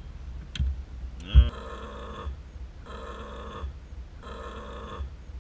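A low grumbling noise, three times, each about a second long, with a sharp knock just before the first.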